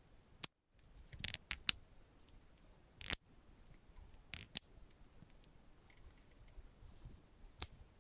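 Handling of an Apple Watch on a magnetic leather link band: a series of sharp clicks as the strap and watch are flexed and fitted, with soft rustling between them, the loudest click just under two seconds in.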